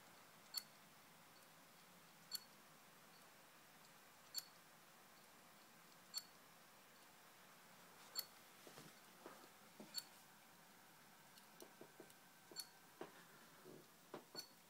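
Failing laptop hard drive in an HP dm3-1130us clicking about every two seconds, each click sharp with a short metallic ping: the repeating head click of a dying drive. From about eight seconds in, softer irregular knocks and rubs join the clicks.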